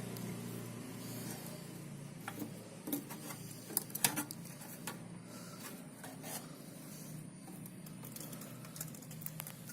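Scattered light clicks and taps of small hard objects being handled, over a faint low hum that fades in the first couple of seconds.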